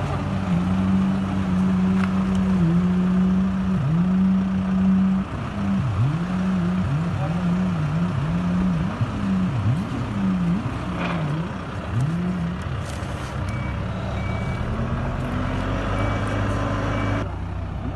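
A heavy vehicle's engine runs steadily, then its pitch dips and recovers again and again for several seconds. Near the end a reversing alarm beeps repeatedly over the running engine.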